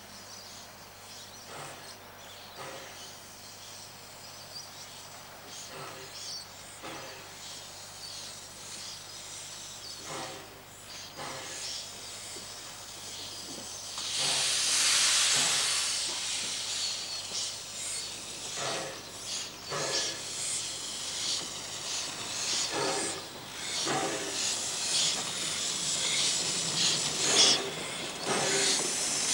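Narrow-gauge D17-class 4-6-4T steam tank locomotive approaching slowly and passing close. About halfway through there is a loud hiss of steam lasting a couple of seconds, then irregular puffs and knocks that grow louder as the engine comes alongside.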